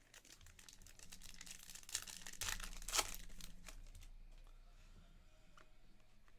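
Plastic wrapper of a 2022-23 Panini Flux basketball card pack being torn open and crinkled: a dense run of crackling that builds to a sharp tear about three seconds in, then thins out.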